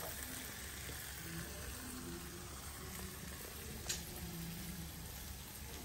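Mozzarella slices sizzling faintly in a frying pan on a gas burner as the melted cheese browns into a crisp crust. One small click about four seconds in.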